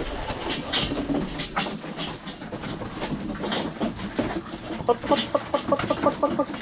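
A flock of racing pigeons pecking at grain, a scatter of sharp taps. Pigeons start cooing about five seconds in.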